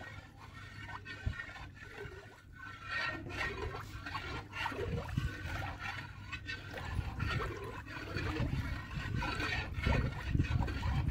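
Long metal ladle stirring and scraping milk in a steel kadhai as it is boiled down for khoya, with the milk sloshing in irregular strokes. A low rumble builds near the end.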